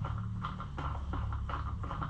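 Light, irregular clicks and taps of tools and parts being handled while the airbox is put back together, over a steady low hum.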